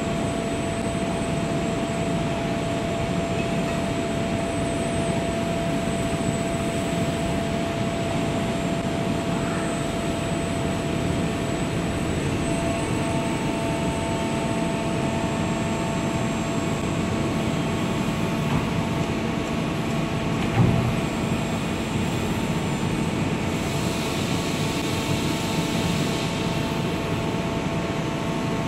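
CNC metal spinning machine running, spinning and forming a metal bottle cylinder, with a steady hum and a high whine. A second whine joins about 13 seconds in, a single knock comes about 21 seconds in, and a burst of hiss comes a few seconds later.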